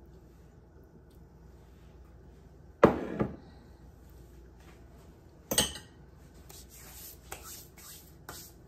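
A ceramic bowl and fork knocking on a hard kitchen surface: a sharp double knock about three seconds in and another sharp knock at about five and a half seconds, followed by faint rustling.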